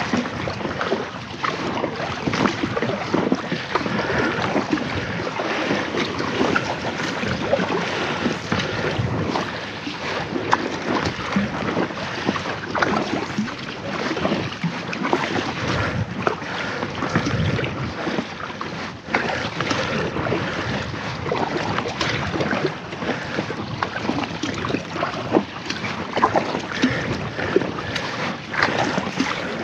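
Paddling an inflatable kayak on choppy water: a double-bladed paddle dipping and splashing, and water sloshing against the hull, with wind gusting on the microphone throughout.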